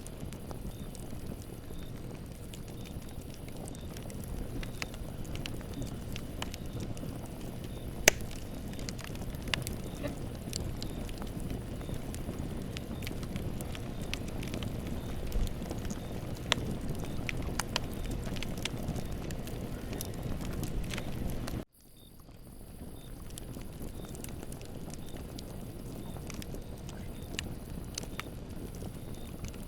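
Campfire burning: a steady low rumble with scattered sharp crackles and pops, one of them louder about eight seconds in. The sound cuts out abruptly about three quarters of the way through and fades back in.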